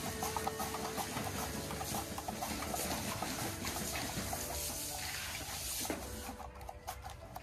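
Raw potato being slid back and forth over a handheld mandoline slicer's blade, with repeated quick scraping strokes as slices drop into a tub of water. Soft background music plays underneath.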